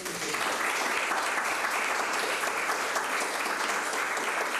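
A small audience applauding, starting at once and holding steady.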